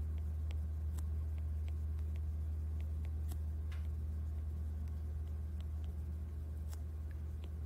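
Steady low hum with light, scattered ticks of a stylus tapping against a tablet's glass screen during handwriting.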